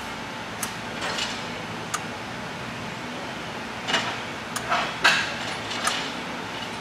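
A few scattered sharp clicks and knocks, clustered around four to six seconds in, over a steady low hum.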